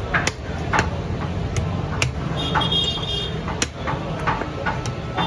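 Heavy butcher's cleaver chopping through a goat head onto a wooden log chopping block: irregular sharp knocks, roughly two a second, over a steady low hum.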